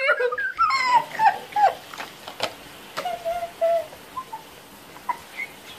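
A girl's wordless, high-pitched whimpering laughter, strongest in the first couple of seconds, then dying down to a few short quieter sounds and light clicks.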